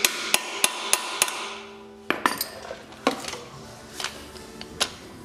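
Hammer striking metal, tapping a hex bit into a stripped hex-head bolt: a quick run of sharp knocks about three a second, then a few slower, scattered knocks with a little metallic ring.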